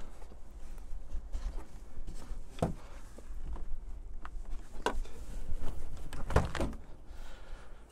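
Jeep Wrangler's removable Freedom Top roof panel being lowered by hand onto the roof frame, knocking against it: a few separate thunks, the loudest two close together near the end.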